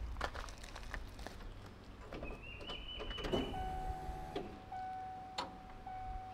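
Clicks and knocks of the van's door and ignition key being worked, with a high tone held for about a second near the middle, then a steady tone from about halfway that runs on with small breaks.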